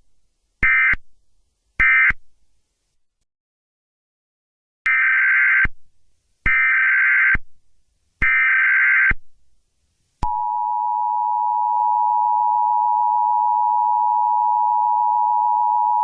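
Emergency Alert System tones. First come the last two of three short digital data bursts, closing the previous alert. Then, after a pause, come three longer data bursts of a new alert header, and about ten seconds in the steady two-tone EAS attention signal starts and holds.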